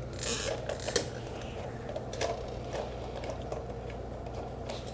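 Light scattered clicks and clinks of small metal engine parts being handled and fitted while reassembling a small engine's carburetor, a few sharper clicks in the first second, over a steady low hum.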